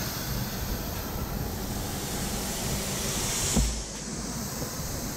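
Paint spray gun hissing steadily as primer is sprayed onto the hull, over the steady rush of ventilation fans. A thump about three and a half seconds in, after which the hiss drops slightly.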